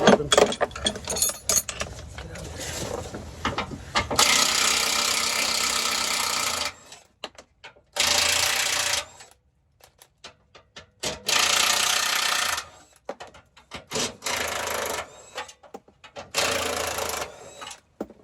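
Cordless impact wrench run in repeated bursts, one of about two and a half seconds and then four or five shorter ones, with clattering metal clicks before the first burst.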